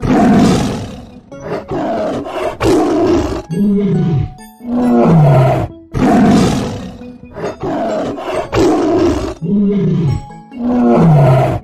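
Tiger roaring and growling in a series of loud calls, several falling in pitch. The same run of calls repeats from about six seconds in.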